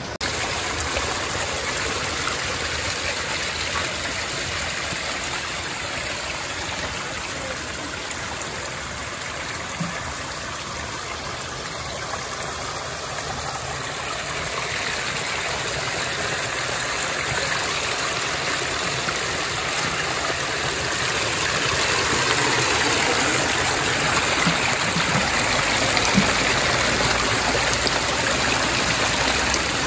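Stream water running, a steady rushing noise that grows a little louder about two-thirds of the way through.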